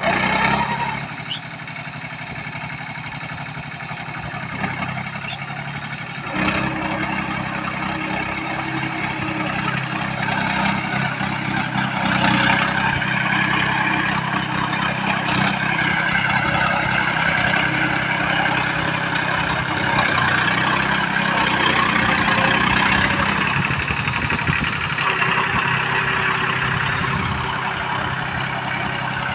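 Diesel tractor engine running steadily while the tractor drives on cage wheels through a flooded paddy field, puddling the mud. It gets louder about six seconds in and is loudest through the middle, easing off a little near the end.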